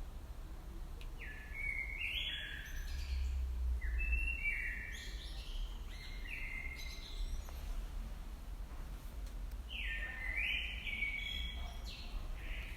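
A songbird singing three short phrases of clear chirping notes that step down and up in pitch, with pauses between them, over a steady low rumble.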